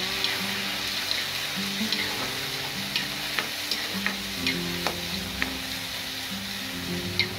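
Chopped tomatoes, shallots and curry leaves sizzling in hot sesame oil in a kadai while a steel ladle stirs them, its edge clicking and scraping against the pan a dozen or so times.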